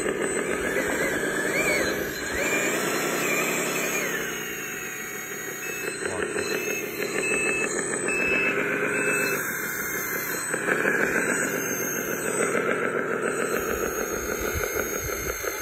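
Electric motors and gearboxes of radio-controlled construction machines running under load, a steady whine that rises and falls in pitch.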